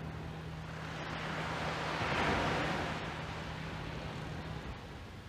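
Small waves breaking and washing on a sandy beach, swelling to a peak about two seconds in, with wind on the microphone. A low steady hum runs underneath and stops near the end.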